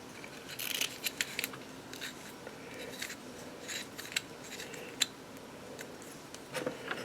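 Faint, scattered clicks and light scrapes of Zippo lighter cases and inserts being handled, small metal parts tapping together.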